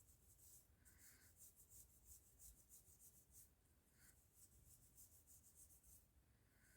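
Fingers rubbing and scrunching hair close to the microphone in an ASMR 'hair cracking' head massage: soft, crackly, scratchy strokes in quick runs of several a second, with short pauses between runs.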